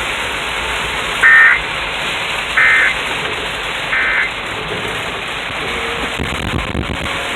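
Three short, buzzy electronic data bursts from a radio's emergency alert broadcast, about a second and a half apart, marking the end of a severe thunderstorm warning. They sound over a steady hiss of rain.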